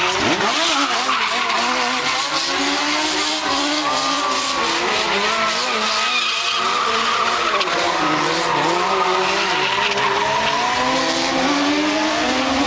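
Small Legends-style race cars spinning donuts, their engines revving up and down with wavering pitch over continuous tyre squeal.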